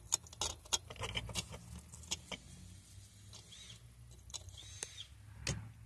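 Scattered small plastic clicks and taps as a car's old window-switch button is handled and snapped back together, over a low steady hum.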